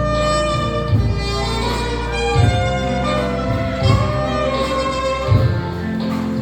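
Instrumental music: a held, sustained melody over a backing accompaniment with a low beat about every one and a half seconds.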